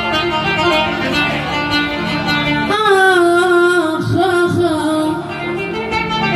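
Iraqi song music: an ornamented melody with sliding, wavering notes over string accompaniment.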